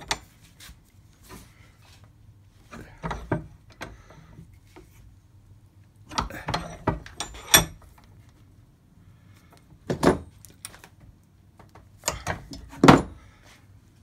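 Steel bench vise being wound shut on a cable lug terminal to crimp it onto a battery wire, then released: a handful of separate metallic clanks and knocks from the vise and its handle, spread out with short quiet gaps between them.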